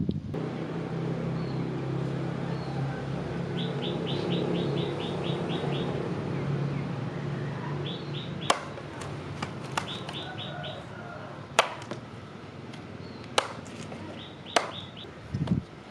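A bird gives a fast high trill three times over a steady low hum that fades after about the first half. From about halfway on, a series of sharp, separate knocks, each over in an instant.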